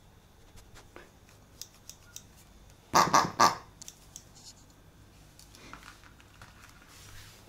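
A few light clicks, then a Siberian husky gives a short vocalization in three quick bursts about three seconds in.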